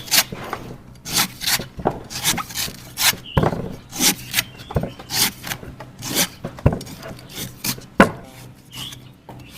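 Knife cutting a coconut: repeated scraping, shaving strokes about one or two a second, with a few heavier chops.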